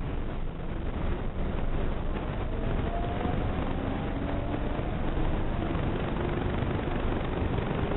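Seibu 20000 series electric train heard from inside the car, running with a steady rumble while its traction-motor whine, several tones together, rises slowly in pitch as the train gathers speed.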